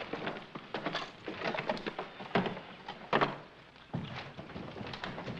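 A run of irregular knocks and wooden thuds, with a few louder ones about two and a half and three seconds in.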